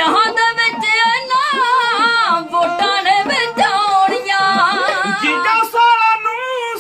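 Punjabi Dhadi singing: men's voices singing an ornamented, wavering melody to a bowed sarangi and small dhadd hourglass drums struck in a steady rhythm.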